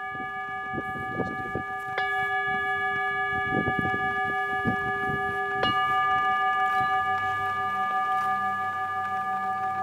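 Crystal and metal singing bowls ringing with long, overlapping held tones. They are struck again about two seconds in and once more just before six seconds, each strike adding a fresh ringing tone.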